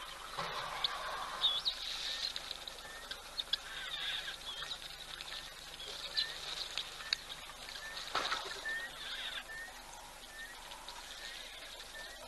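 Glossy starlings and helmeted guineafowl calling: busy chirps and short rising whistled notes about once a second, with a louder noisy call about eight seconds in.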